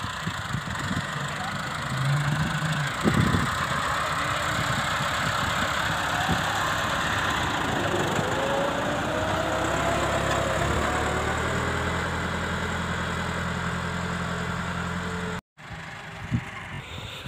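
Farm tractor's diesel engine running under load as it pulls a three-disc plough through dry soil, with a thump about three seconds in. The engine note rises and falls around the middle, then runs steadily before cutting off abruptly near the end.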